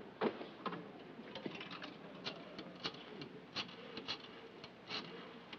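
Wall-mounted rotary telephone being dialed: short, irregular clicks of the dial being pulled round and released, with a louder knock just after the start.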